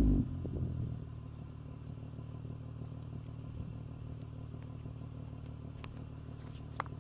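2006 Honda Accord V6 engine breathing through a custom 3-inch dual exhaust, dropping off a rev in the first half second and settling into a steady, low idle.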